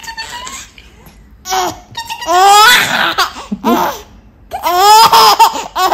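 Baby laughing in loud, high-pitched bouts of quick pulsing laughs, the two longest about two and about five seconds in.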